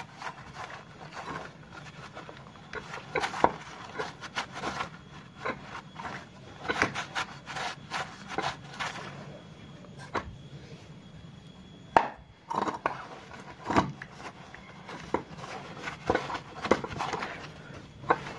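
A cloth rag rubbing and wiping over a scooter's kick-starter gears and the inside of the crankcase cover, wiping off excess oil, in irregular scuffing strokes. Occasional light knocks of metal parts, and a sharp click about twelve seconds in.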